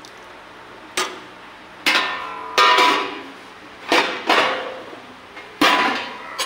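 Stainless-steel serving trays, lids and a ladle knocking together: about seven sharp metallic clanks, each ringing briefly.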